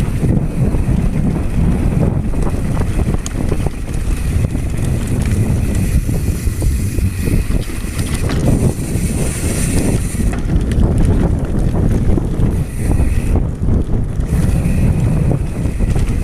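Wind buffeting the camera microphone over a steady rumble of mountain bike tyres on a dirt downhill trail, with constant knocks and rattles from the bike bouncing over bumps.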